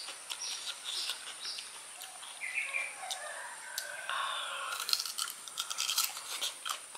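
Crisp crunching and chewing as a firm, peeled ambarella (kedondong) fruit is bitten into, a quick run of crunches from a little before five seconds in. Small birds chirp in the background.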